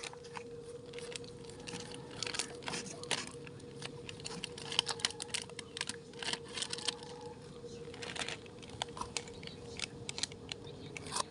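Irregular crisp crunches and clicks, close up, of Pocky biscuit sticks being bitten and chewed. A faint steady hum runs underneath.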